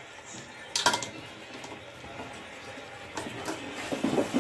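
Metal spoon stirring chicken curry in a metal pot, with one sharp knock against the pot about a second in and a few lighter clinks later.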